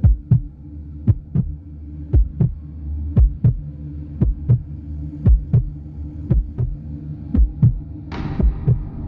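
Heartbeat sound, a double lub-dub thump repeating about once a second over a steady low hum. A hiss comes in near the end.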